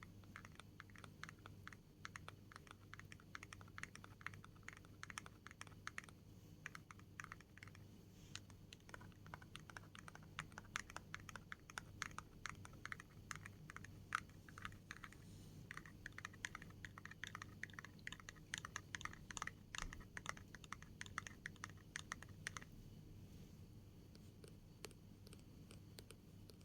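Fast, light fingernail tapping, dense runs of small clicks like typing, that thins to occasional taps near the end.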